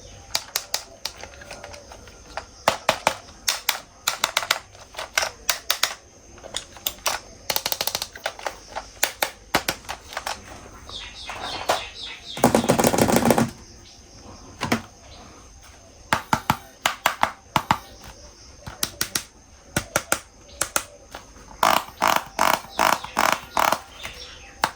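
Hard plastic clicking and clattering in quick runs of sharp taps, typical of plastic toy vehicles being handled and knocked together, with a short loud rush of noise about halfway through.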